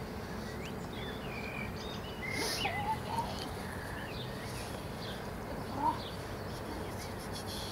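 Small birds chirping and twittering over steady outdoor background noise, with a short, louder squeak about six seconds in.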